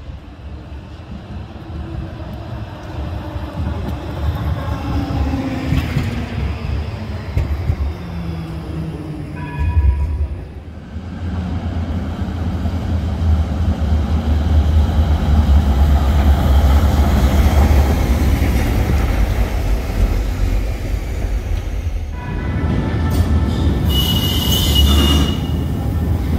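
Trams running on street track: an electric motor whine falling in pitch, a short high tone about ten seconds in, then a heavy rumble of steel wheels on rail as a tram passes close. Near the end a tram runs through an underground station, and its wheels squeal loudly on the curved track.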